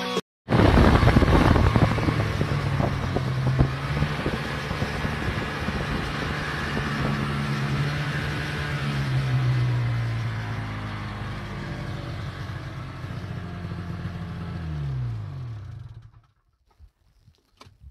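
Two-stroke snowmobile engine running under way at a steady pitch; near the end it drops in pitch as the sled slows, and the sound stops suddenly.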